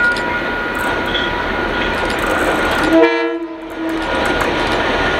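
DC-class diesel-electric locomotive passing close, its engine and wheels making a steady, loud running noise. About three seconds in it gives one short horn blast lasting about a second.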